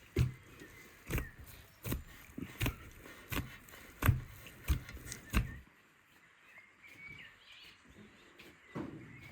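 A run of about nine sharp knocks, roughly one every two-thirds of a second, that stops after about five seconds, followed by faint bird chirps.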